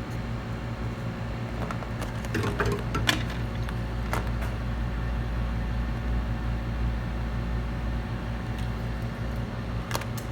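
Steady hum of an electric blower running on the repair bench, with a mains-like buzz underneath. A few faint clicks and taps come about two to three seconds in and again near the end.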